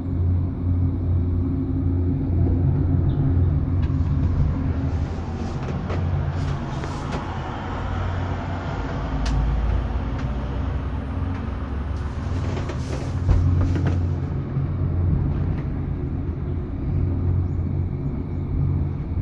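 Cable-car gondola riding along its haul rope, a steady low rumble in the cabin. Scattered clicks and rattles come through the middle stretch.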